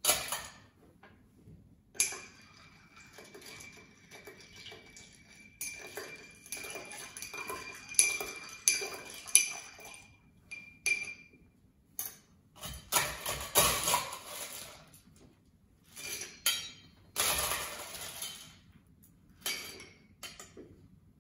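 Ice cubes scooped from a metal ice bucket and dropped into a tall glass, then a long bar spoon stirring the ice in the glass, with repeated clinks of ice against glass.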